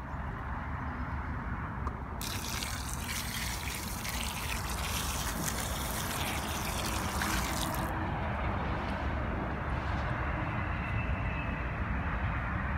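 Water from a garden hose pouring and splashing as the soil around the sides of a newly sunk preformed pond is watered in. The splashing is loudest from about 2 to 8 seconds in and then carries on more softly, over a steady low rumble.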